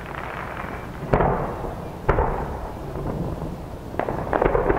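Aerial firework shells bursting: two loud booms about a second apart, each followed by a rumbling echo, then a quick run of crackling pops near the end.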